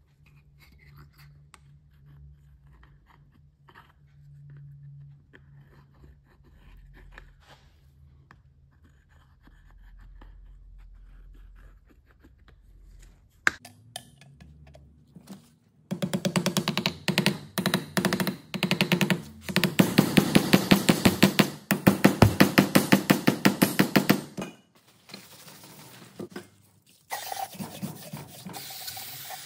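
Aerosol spray-paint can shaken hard, its mixing ball rattling in quick short bursts and then steadily for several seconds. Near the end comes the hiss of spraying.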